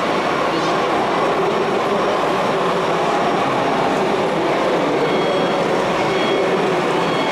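Steady background din of a busy exhibition hall, an even rumble and hiss with no single sound standing out.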